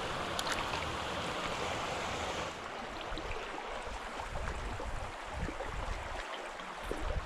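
Small mountain stream flowing: a steady rush of running water, which loses some of its hiss about two and a half seconds in.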